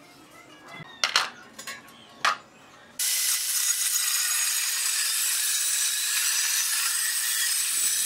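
Two sharp clicks, then from about three seconds in a handheld angle grinder with an abrasive cut-off disc cutting through steel plate: a loud, steady, mostly high-pitched hiss.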